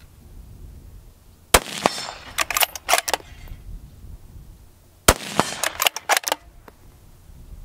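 Two shots from a bolt-action precision rifle with a heavy Palma barrel, about three and a half seconds apart, each a sharp crack followed by about a second of quick clicking and clatter as the bolt is worked. A third shot cracks right at the end.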